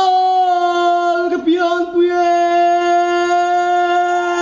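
A solo singer holds one long, steady note, with a brief waver about a second and a half in.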